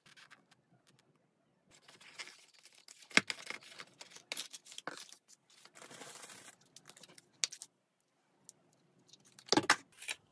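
Handling noises of a cardboard pizza box and food: scattered light clicks, rustles and tearing as a slice is pulled away. Near the end comes the loudest sound, a close-up bite into a pizza slice.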